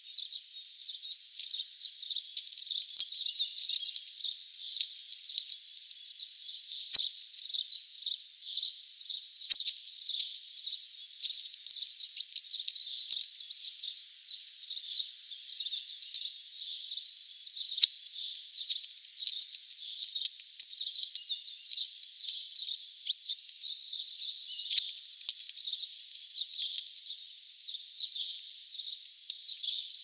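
Hawfinch cracking sunflower seeds in its heavy bill on a seed-strewn feeder tray: a dense, irregular run of sharp clicks and crackles from seeds and husks, several a second.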